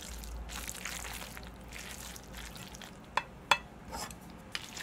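Freshly cooked Chapagetti noodles with eggs being stirred and mixed through their thick black-bean sauce, a soft sticky squishing and scraping. There are two sharp clinks of the utensil against the dish a little after three seconds in.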